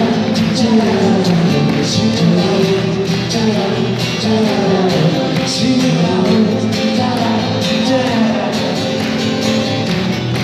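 A live band playing pop-rock: acoustic guitars strummed over a drum kit keeping a steady beat, with singing.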